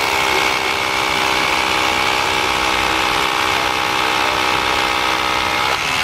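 SDS-plus rotary hammer drilling into a concrete block with a 1/2-inch Bosch Bulldog Xtreme carbide-tipped bit that has been heated until it turned blue, running steadily and stopping near the end.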